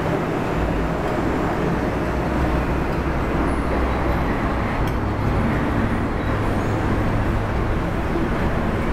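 Steady road-traffic noise, a continuous low hum with no breaks.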